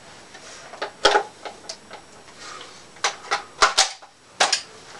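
Airsoft M4 rifle being handled: about half a dozen sharp clicks and clacks of its parts, irregularly spaced, the loudest a close pair just past the middle and one near the end.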